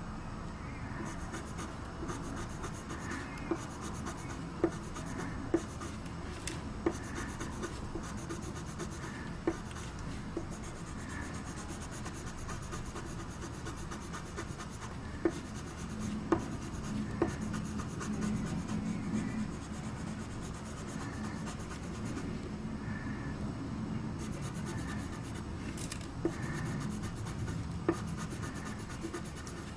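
Black pencil scratching and rubbing across drawing paper in repeated shading strokes. About ten sharp ticks are scattered through it.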